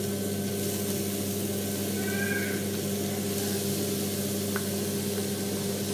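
Grated carrots frying in hot ghee: a faint steady sizzle over a steady low hum, with a brief high squeak about two seconds in.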